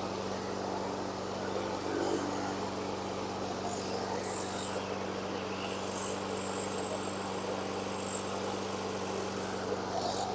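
Honda HRN216 walk-behind mower's GCV170 single-cylinder engine running steadily at constant speed, with a slight vibration that the owner puts down to an out-of-balance blade, perhaps a bent blade adapter.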